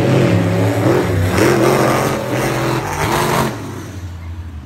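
School-bus-bodied monster truck's engine revving hard, its pitch rising and falling several times, then easing off about three and a half seconds in.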